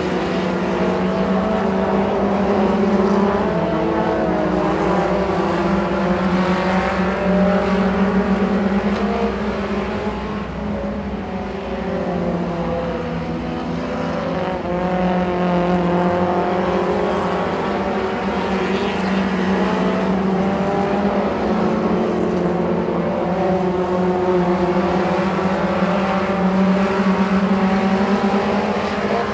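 Several mini stock race cars' four-cylinder engines running hard together, the pitch rising and falling as the cars accelerate down the straights and lift for the turns.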